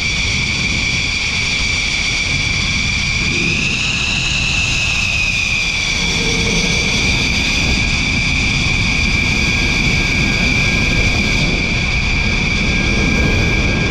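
Dassault Rafale's twin Snecma M88 turbofan engines whining at taxi power over a steady low rumble; the whine rises in pitch about four seconds in, then settles back.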